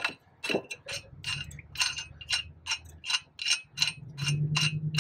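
Steel lug nuts being spun off the wheel studs of a minivan's front hub by hand: a run of light metallic ticks, about two to three a second.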